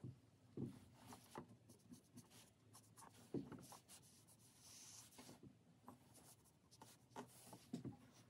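Fine-tip ink pen scratching on paper in short, quick strokes with small taps, faint, with one longer scratchy stroke about halfway through.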